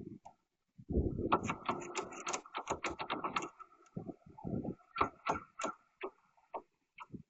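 Rapid, irregular knocking and clattering, densest for about two and a half seconds from a second in, then thinning to scattered knocks.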